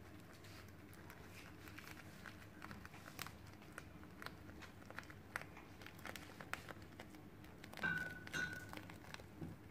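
Faint crinkling and small ticks of hands rolling a damp rice-paper spring roll with lettuce on a bamboo cutting board. Two brief squeaks about eight seconds in are the loudest sounds.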